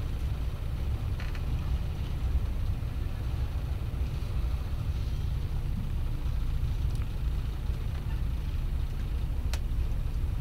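Steady low rumble of a car ferry's engines under way, heard from inside the passenger cabin, with a single faint click near the end.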